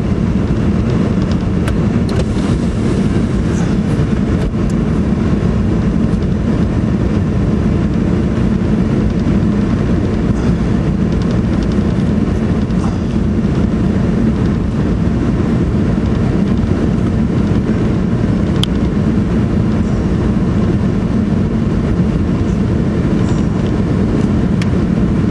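Steady low rumbling noise with a few faint clicks; no duck quacks stand out.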